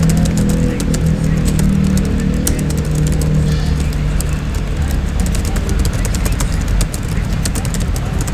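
Rapid typing on a laptop keyboard, a fast irregular run of key clicks, over a loud steady low rumble with a low hum.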